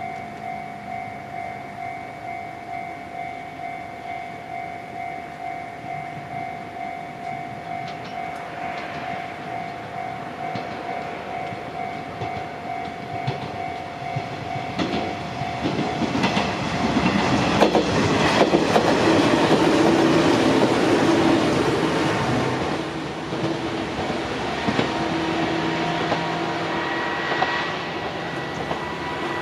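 A Japanese level-crossing alarm ringing its repeating two-tone bell. About halfway in, an Izuhakone Railway Sunzu Line electric train passes over the crossing, its wheels clattering over the rail joints. It is loudest for several seconds, then eases off while the alarm tones carry on.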